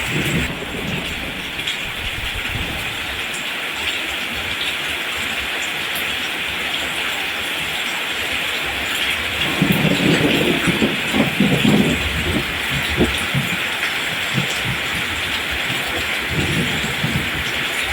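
Steady rain falling, an even hiss, with a louder low rumble from about ten to twelve seconds in and again briefly near the end.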